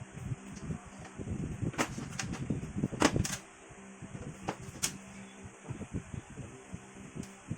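Handling noise from working on a rice cooker's parts: rustling with several sharp clicks and taps, the loudest pair about three seconds in, over a faint steady hum.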